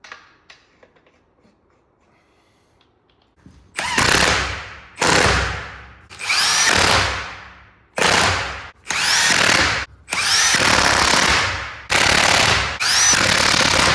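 Impact wrench run in about eight short trigger pulls, each about a second long, beginning about four seconds in. Each burst cuts in sharply with a rising whine and the rapid hammering of the impact mechanism.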